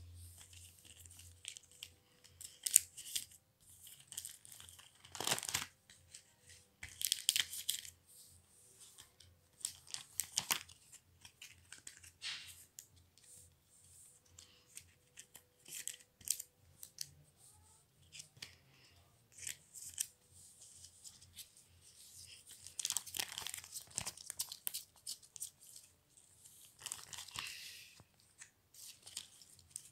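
Plastic pocket pages of a trading-card binder crinkling and rustling as they are turned and handled, in quick irregular crackles with a few louder bouts.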